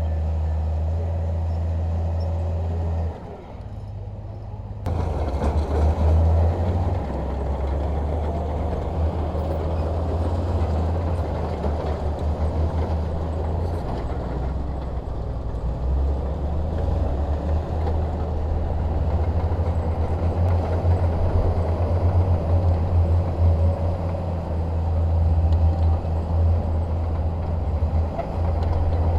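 Bulldozer's diesel engine running and working under varying load. There is a brief drop in level about three seconds in, and after it the engine comes back louder, rising and falling.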